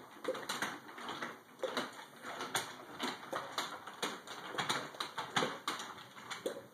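Toddlers' plastic strap-on roller skates clacking and rolling on a hardwood floor: irregular knocks and clicks, about two a second.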